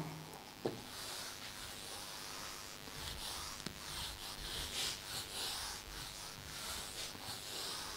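Whiteboard duster rubbed back and forth across a whiteboard, erasing the writing in a quick run of faint swishing strokes, about two a second, starting about three seconds in.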